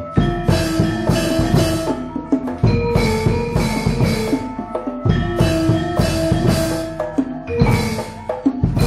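Gamelan music accompanying a wayang golek puppet dance. Metallophone notes ring over hand-drum strokes and frequent sharp wooden knocks.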